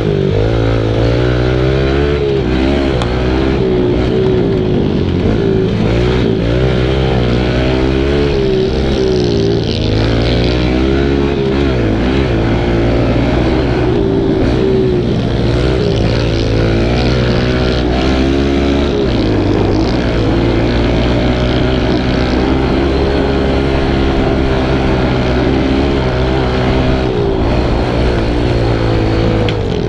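Kawasaki KLX110 pit bike's small four-stroke single-cylinder engine under hard riding, revving up and down over and over as the throttle opens and closes and the gears change.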